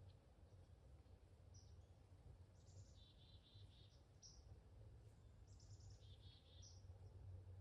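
Faint songbird song: two short trilled phrases about three seconds apart, over a low steady rumble.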